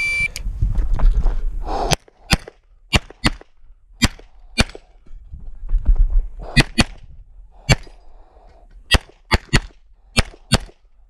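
A shot timer beeps once to start the run. About two seconds later a pistol fires about fourteen shots in quick pairs over the next nine seconds.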